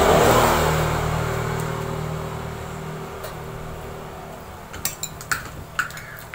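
Metal spoon clinking against a glass bowl a handful of times near the end. Before that, a low steady hum with a rush that fades away over the first few seconds.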